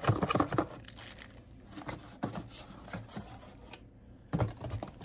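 A plain cardboard box and its packaging being handled and opened by hand: rustling, scraping and tearing. It is loudest in the first half second and again about four seconds in.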